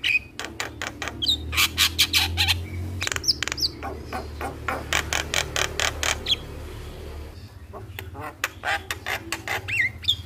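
Javan myna singing in a rapid chattering run: harsh clicking and rattling notes mixed with short whistled glides, broken by a brief pause about two-thirds of the way through, over a low hum.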